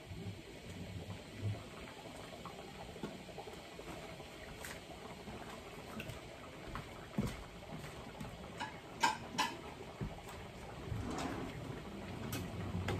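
Pork blood stew simmering in a wok, bubbling steadily, with scattered sharp clicks and clinks, two close together about nine seconds in.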